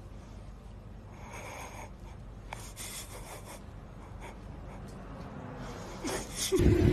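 Quiet eating sounds from a woman with a mouthful of noodles: soft breaths and a few short slurps. Near the end a loud, steady engine drone cuts in abruptly.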